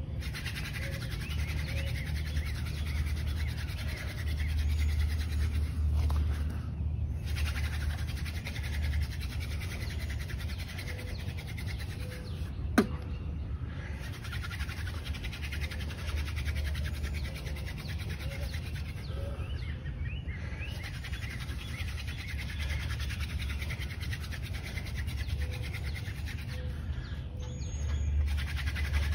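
Hand drill fire-making: a 3-foot horseweed spindle spun back and forth between the palms, drilling into a tulip poplar fireboard with a steady, rhythmic rubbing and scraping. The board is already smoking as the spindle works toward an ember. There is one sharp click about 13 seconds in.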